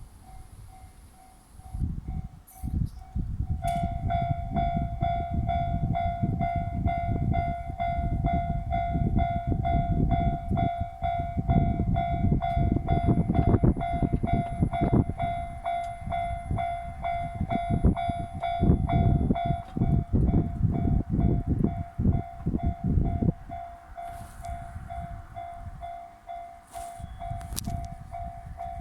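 Two Japanese level-crossing alarms ringing with a repeating electronic clang, one already sounding and a second joining at a slightly different pitch about three and a half seconds in. A train rumbles through the crossings with rapid wheel clatter, dying down after about twenty-three seconds while the alarms keep ringing.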